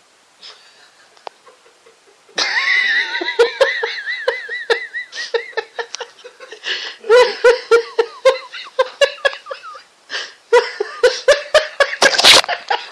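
People laughing hard in rapid, wavering bursts, starting suddenly about two and a half seconds in after a quiet start.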